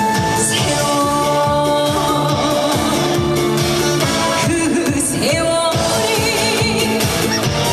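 Live trot song: a woman singing over an amplified backing track with a steady beat.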